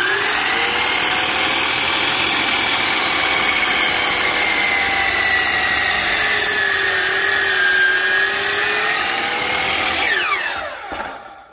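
Hercules 12 in. sliding compound miter saw's electric motor spinning up and running with a steady high whine while the blade cuts a board, its pitch sagging a little under load for a couple of seconds in the middle. About ten seconds in the trigger is released and the electric brake stops the blade in about a second, the whine falling fast.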